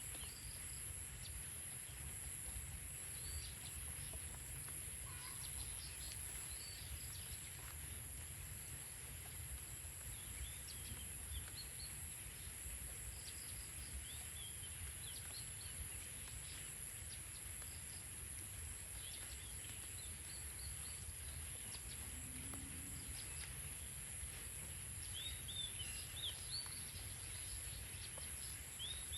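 Rural outdoor ambience: scattered short bird chirps, more frequent near the end, over a steady high-pitched hum and a low rumble.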